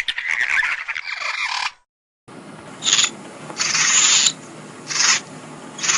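Compsognathus creature sound effects: a short, shrill, wavering call cuts off about two seconds in. After a brief gap comes a run of rasping, breathy hisses about once a second.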